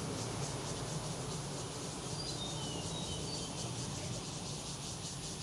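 Outdoor ambience of insects calling in a steady, fast pulsing rhythm, with a few short high bird chirps in the middle, over a constant low background hum.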